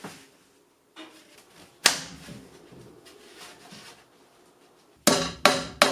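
Sharp knocks: one strike about two seconds in, then a quick run of three strikes near the end, about two or three a second, each with a short ringing decay.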